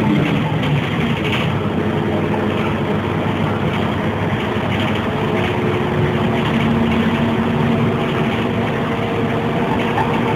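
Ikarus city bus's diesel engine and drivetrain, heard from inside the passenger cabin as the bus drives along. Its note fades back about a second in and strengthens again about halfway through.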